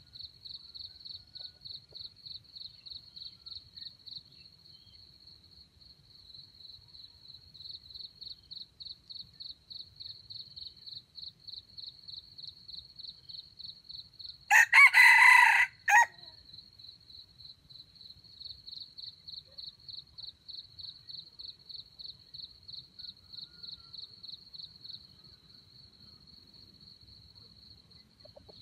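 A red junglefowl rooster crows once, loud and short, about halfway through. Behind it, insects chirp in a steady high pulse that breaks off now and then.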